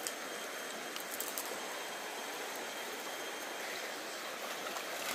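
Shallow river running over stones: a steady rush of water, with a few light clicks near the start and about a second in.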